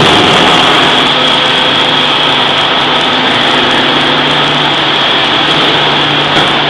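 Forge-shop machinery running steadily: a loud, continuous mechanical noise with a constant high whine and a low hum, and no distinct hammer blows.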